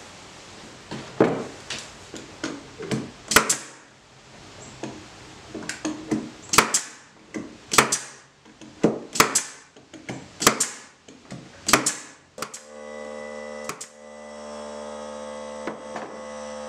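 Central Pneumatic air nailer firing brads into pine tray boards, about a dozen sharp shots roughly a second apart. About two-thirds of the way in, a steady motor hum sets in and keeps going.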